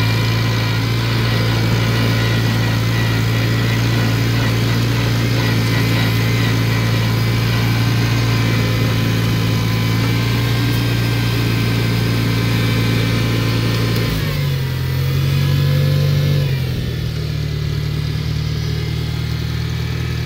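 A 1952 Farmall Cub's four-cylinder flathead engine running steadily as the tractor drives. About two-thirds of the way through, the engine note shifts, rises briefly, and then settles a little quieter.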